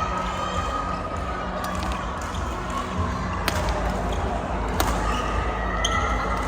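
Badminton rally: sharp racket strikes on the shuttlecock every second or so, with shoes squeaking on the court floor.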